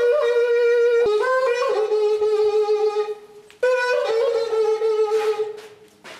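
A solo wind instrument playing long held notes in two phrases, each fading out, with a short break about three and a half seconds in.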